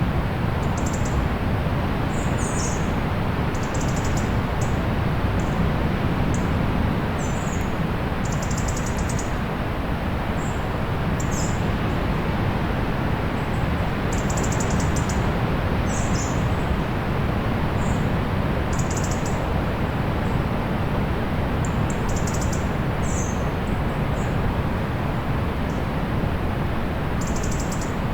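Steady rushing of distant sea surf, with many short, high bird chirps coming at irregular intervals over it.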